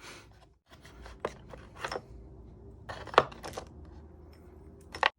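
Packaging being handled during an unboxing: paper and cardboard rustling and sliding, with several sharp clicks and taps, the loudest about three seconds in and another just before the end.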